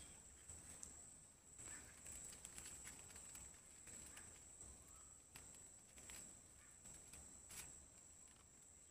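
Faint outdoor ambience: a steady high-pitched insect drone, with scattered soft clicks and rustles over it.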